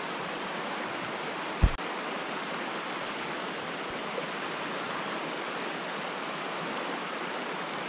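Steady rush of a small mountain stream's flowing water, with one sharp knock a little under two seconds in.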